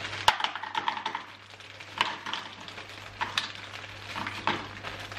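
Frozen mixed vegetables tipped from a plastic bag into a plastic microwave container: hard frozen pieces clattering in with the bag crinkling. A quick patter of small clicks at the start, then single knocks every second or so as more pieces drop.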